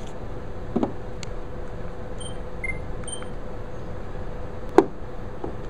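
Steady room noise with a faint constant hum, a few soft clicks or knocks (the loudest nearly five seconds in), and a handful of very short, faint high beeps around the middle.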